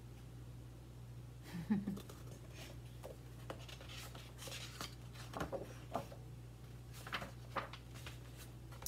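Paper pages of a picture book being handled and turned: a run of irregular light rustles and scrapes, starting about a second and a half in, over a faint steady low hum.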